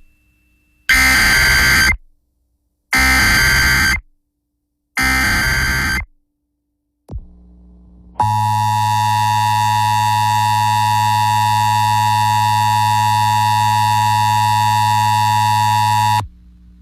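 Emergency Alert System SAME header: three short bursts of screeching digital data tones, about a second apart. Then comes the EAS two-tone attention signal (853 and 960 Hz), held steadily for about eight seconds and cutting off suddenly, announcing a severe thunderstorm warning.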